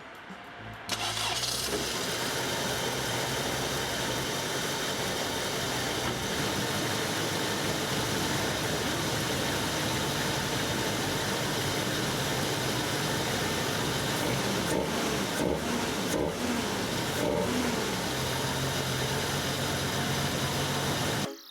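Toyota AE86 Levin's 4A-GE twin-cam four-cylinder engine running steadily, coming in suddenly about a second in and stopping abruptly near the end.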